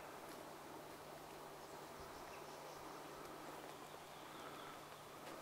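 Faint, steady outdoor ambience: an even hiss with a low steady hum underneath and no distinct events.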